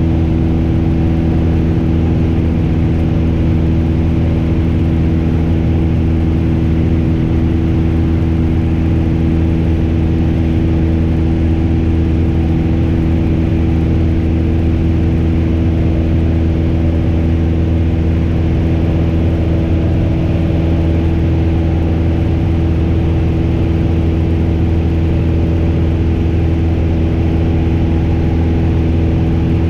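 Piper PA-28's piston engine and propeller running steadily at cruise power, a constant even drone heard from inside the cockpit.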